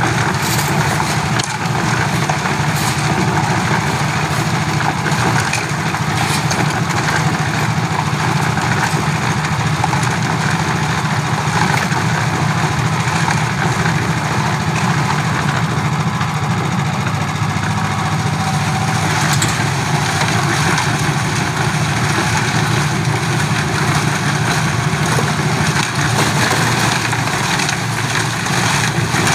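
Portable concrete mixer's engine running steadily, turning the drum as it mixes a batch of concrete.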